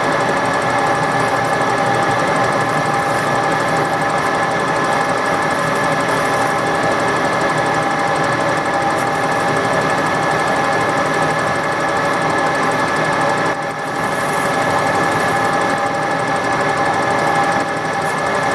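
Metal lathe running steadily at speed while a small twist drill fed from the tailstock bores a tap hole into a part held in the chuck. A steady whirring hum with a constant whine on top, dipping briefly about three-quarters of the way through.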